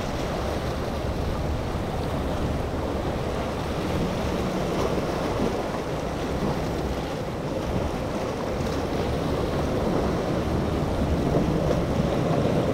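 Surf and wind noise on the microphone, with a boat's triple Mercury 300 outboard engines running at speed through the waves, growing louder near the end as the boat comes closer.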